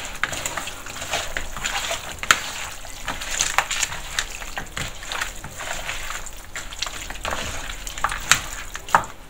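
Hands squeezing and turning halved raw quail in a wet marinade in a plastic bowl: wet squelching and sloshing with irregular clicks and knocks, a few sharper ones near the end.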